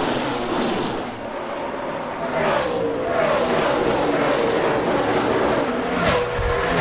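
NASCAR Sprint Cup stock car V8 engines running at racing speed. The engine note dips in pitch about two to three seconds in, then holds a steady high pitch.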